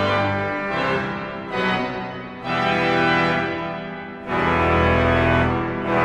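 Cavaillé-Coll pipe organ playing sustained chords. The sound swells twice, about two and a half seconds in and again after four seconds, each time with a deep pedal bass under the chords.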